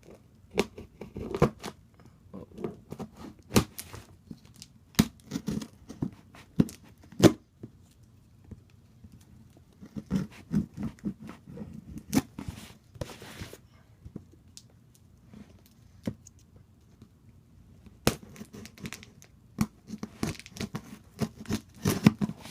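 A cardboard package being opened by hand: irregular tearing, crinkling and knocks of cardboard and packing, in clusters with short pauses between.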